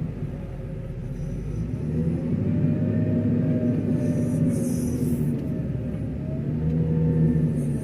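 Diesel engine of a JCB 426ZX wheel loader running, revving up and easing back down twice as it works.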